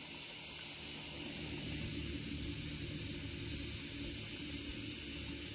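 A steady hiss of food cooking over a fire, with a low rumble underneath.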